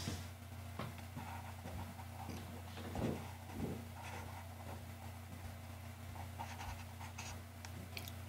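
Faint scratching and light ticks from a computer input device as a brush is stroked over a layer mask, over a steady low hum. Two soft bumps come about three seconds in.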